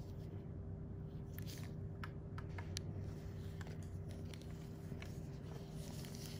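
A steady low hum with a constant tone running under scattered small, irregular clicks and ticks.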